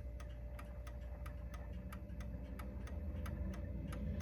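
Mauthe mantel clock movement ticking steadily, about three ticks a second. It is running a little out of beat because the clock is not sitting level.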